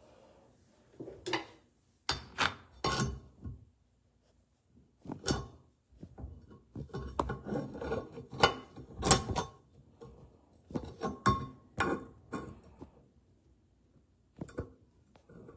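Handling noise from a phone camera being positioned and propped up: irregular knocks, clinks and rubbing, in clusters with short quiet gaps, busiest in the middle.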